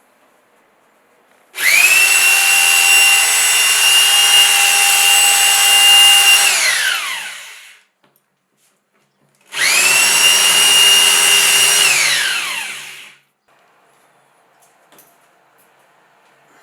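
A power tool's electric motor runs twice. Each time it spins up quickly to a steady high whine, then winds down with falling pitch once the trigger is released. The first run lasts about six seconds and the second, shorter one about three.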